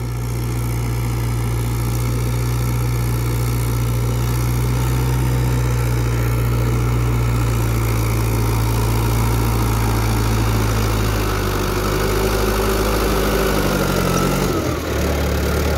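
Mahindra 475 DI XP Plus tractor's four-cylinder diesel engine running steadily under load as it pulls a disc implement through the field. Its pitch shifts slightly late on.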